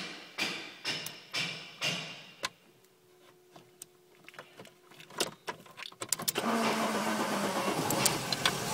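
VW T4 van engine being started: a run of loud pulses about twice a second dies away, then a quiet spell with a few clicks. About six seconds in, the engine catches and settles into a steady idle.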